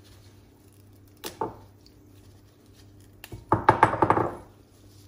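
A knock about a second in, then a quick run of knocks and clatter, from kitchen items being handled on the counter.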